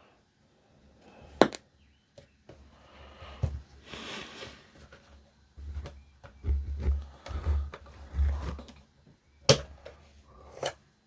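Handling noise from a plastic DAB radio being worked by hand: two sharp clicks, one early and one near the end, with some rustling and a run of low thuds in between.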